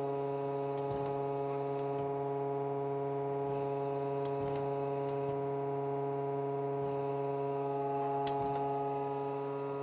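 Hydraulic test stand's power unit, its pump and motor, running steadily under about 1,200 PSI: an even hum made of a low drone and several steady higher tones.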